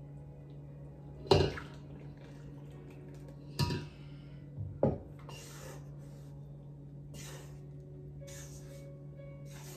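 A spatula knocks three times against the mixing bowls in the first five seconds as batter is poured and scraped from a spouted bowl into a stainless steel bowl. Then it stirs the wet batter into the flour, a short scraping swish about once a second.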